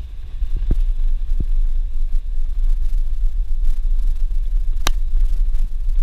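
Suzuki Jimny driving slowly over a rough dirt road, heard from inside the cabin: a steady low rumble with a few light knocks from bumps, and one sharp knock about five seconds in.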